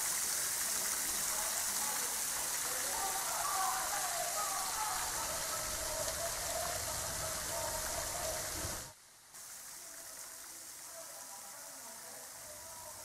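Garden fountain jet spraying and splashing into a pond: a steady hiss of falling water. It cuts off suddenly about nine seconds in, leaving a much quieter background.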